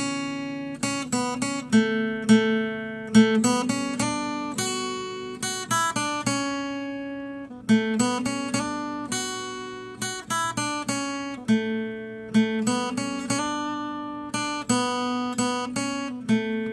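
Acoustic guitar intro music, with picked notes and strummed chords that ring out and fade in a repeating phrase.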